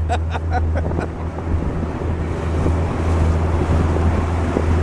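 Fishing boat's outboard motor running steadily under way, a low even drone, with wind buffeting the microphone and water rushing past the hull.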